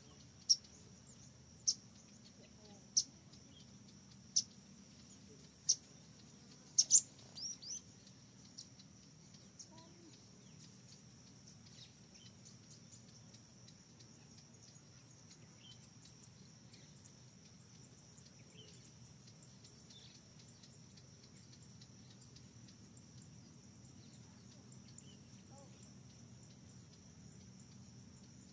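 Steady high-pitched insect drone, with a bird giving a short sharp call about every second and a half through the first seven seconds.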